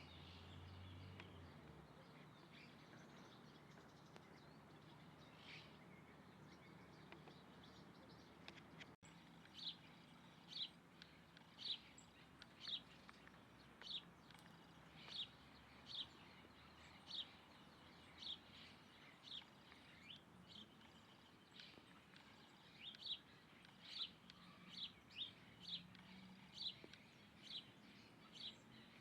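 A bird calling with short, high chirps, repeated about once a second from about a third of the way in, and coming quicker near the end.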